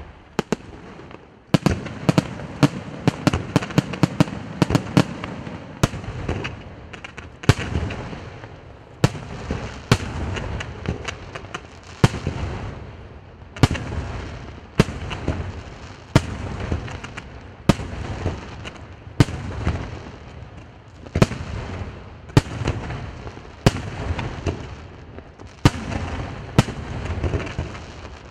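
Aerial fireworks display: shells bursting in sharp, loud bangs, each trailing off in a rumbling echo. There is a quick flurry of bangs in the first few seconds, then a steady sequence of about one bang every second or so.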